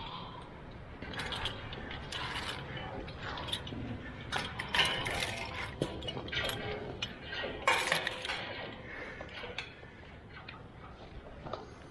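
Metal climbing hardware clinking and rattling: a string of irregular clicks, clinks and scrapes, loudest about five and eight seconds in.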